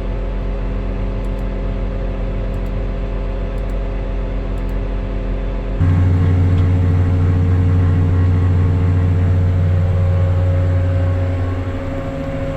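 Farm machinery engine running steadily with an even hum. About six seconds in the sound changes abruptly to a louder, deeper drone, which eases back near the end.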